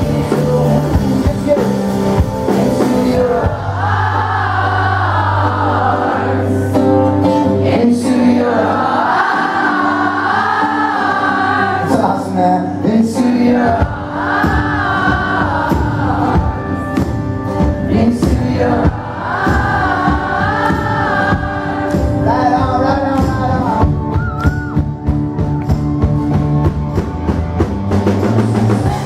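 Live rock band playing: a man sings lead over strummed acoustic guitar, electric bass and drums, with the sung melody rising and falling in long phrases.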